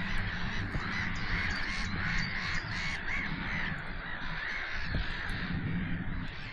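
A large flock of water birds calling all at once: a dense, unbroken chorus of many overlapping harsh calls, with wind rumbling on the microphone underneath.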